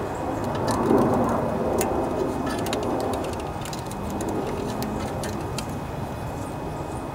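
Steady background rumble, like a passing vehicle, that swells about a second in and fades, with scattered light clicks from a plastic zip tie being handled and threaded around engine wiring.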